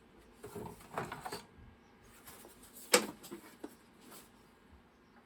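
Plastic cover of a DEC VT220 terminal being worked loose and lifted off: handling knocks and scrapes about a second in, then one sharp click near three seconds and a few lighter ticks.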